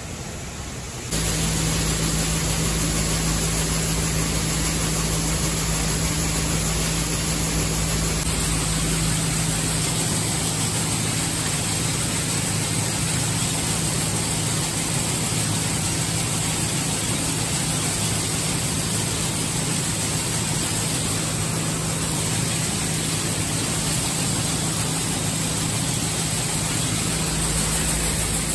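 Seed-cleaning plant machinery running while cleaning peas: a loud, steady mechanical noise with a constant low hum, from vibrating screen cleaners and separators with peas pouring through them. It jumps suddenly louder about a second in and then holds level.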